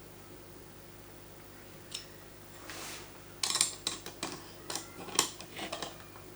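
Hard plastic parts of a fishing line winder being handled and fitted: a single click, then a run of sharp clicks and rattles in the second half.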